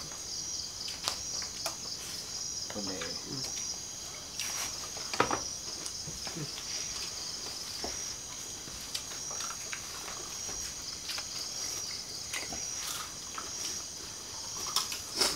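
Night chorus of crickets and other insects, a steady high-pitched chirring. A few sharp clinks of spoons on plates and a pot sound over it.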